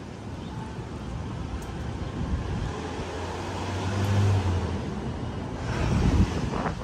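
Road traffic passing: an engine hum swells and fades about four seconds in, and a louder vehicle passes near the end.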